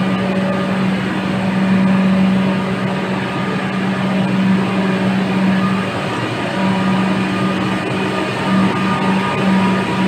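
Electric suburban train giving off a steady low electrical hum over a constant wash of noise.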